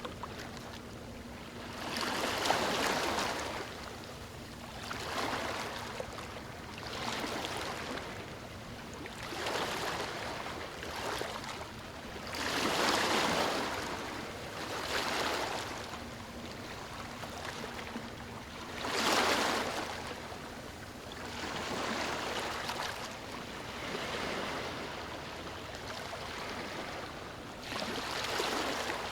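Ocean surf breaking and washing up a beach, coming in surges every few seconds over a steady wash; the biggest waves break about 2, 13 and 19 seconds in.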